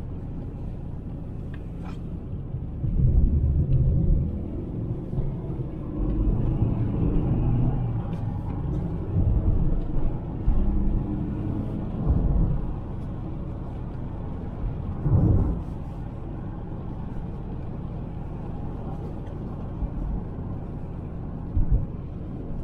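2003 Mercedes C200 Kompressor's supercharged 2.0-litre inline-four (M271) on the move, its note swelling several times under acceleration and easing off again, over a steady road rumble.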